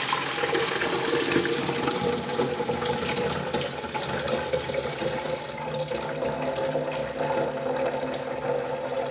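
Water running steadily into the coffee machine's removable water tank, diluting the descaling solution up to the fill line.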